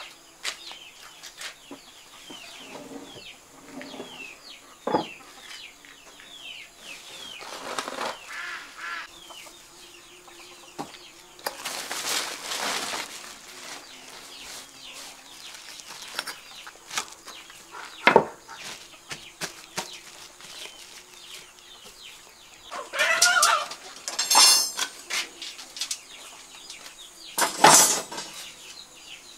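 Chickens clucking with small birds chirping, broken by a few sharp knocks and a rustle of a woven plastic sheet being handled. Louder calls come about three-quarters of the way through.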